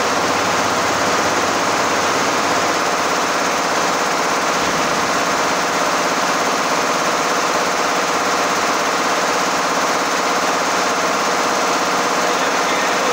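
Industrial multi-head embroidery machine running, its many needle heads making a loud, fast, even mechanical clatter that stays steady.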